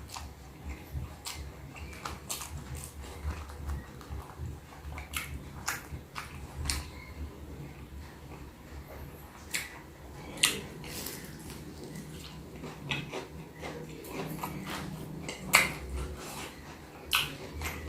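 Close-up eating sounds: a person chewing a mouthful of food with soft wet mouth noises, broken by scattered sharp clicks and smacks a few seconds apart.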